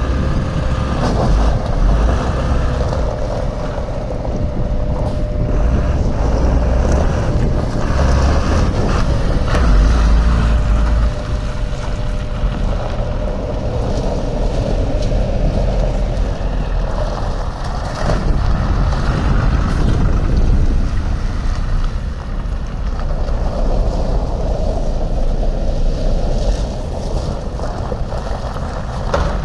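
Diesel engine of a Renault Midlum 180 truck idling steadily, with wind buffeting the microphone in gusts.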